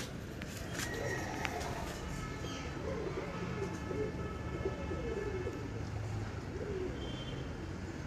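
Domestic pigeons cooing in low, wavering phrases, over a steady low hum.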